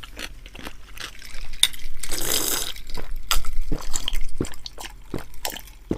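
A person gulping a drink from a glass mug: liquid sounds and swallows, with a few light knocks of the glass.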